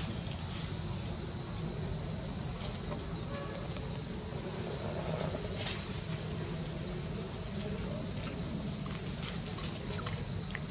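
Steady, high-pitched drone of an insect chorus, with a low rumble underneath.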